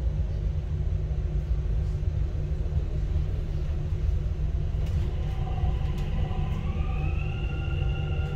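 Dubai Metro train running along, heard from inside the carriage as a steady low rumble. From about five seconds in, a whine from the train's electric drive rises in pitch and levels off near the end as the train picks up speed.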